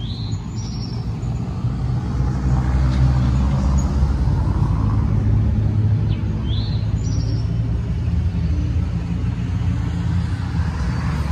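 Low rumble of a motor vehicle's engine that swells about two seconds in and then holds steady, with a few short high chirps over it.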